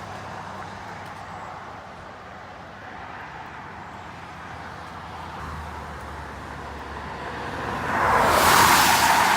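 A vehicle approaches and passes on the road, its low engine hum growing and then a loud tyre rush about eight seconds in, over a steady background rush.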